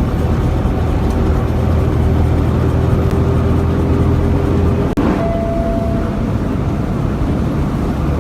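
Steady, loud rumble of a motor vehicle running. There is a sudden break about five seconds in, followed by a brief higher-pitched tone.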